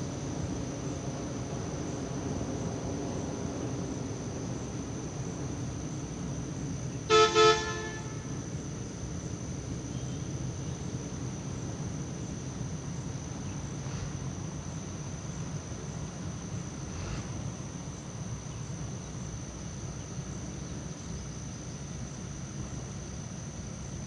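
Vehicle horn giving two short honks in quick succession about seven seconds in, over a steady low rumble of road traffic and a thin, steady high-pitched drone.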